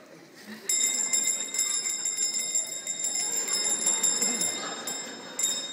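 A mechanical alarm-clock-type bell ringing continuously with a fast rattling strike. It starts suddenly about a second in, breaks off for a moment near the end, rings again briefly and stops.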